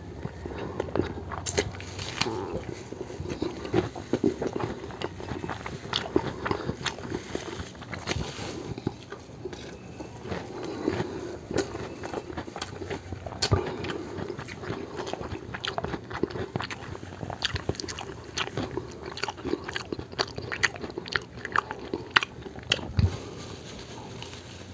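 Close-up eating sounds: biting and chewing with many short, sharp crunches and wet mouth clicks.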